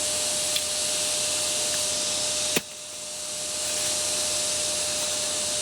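Steady hiss with a faint steady tone beneath it, broken by a sharp click about two and a half seconds in, after which the hiss drops and slowly climbs back.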